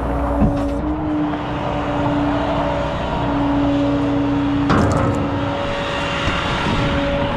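Rollback tow truck's hydraulic winch running as the disabled pickup is pulled up the bed on wheel skates, with a steady whine that drops out and comes back as the controls are worked. A sharp metallic clank comes about two-thirds of the way through.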